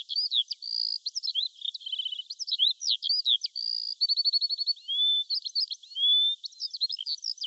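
A songbird singing a fast, varied song of high-pitched chirps, short rapid trills and slurred rising whistles.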